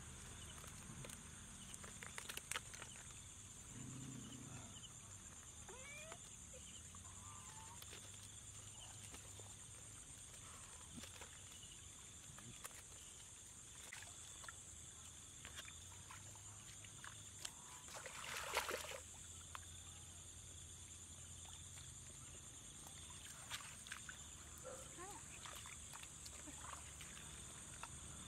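Faint outdoor ambience: steady high insect chirring, with small splashes and knocks as hands work in shallow water around bamboo fish traps. One louder splash comes about two-thirds of the way through.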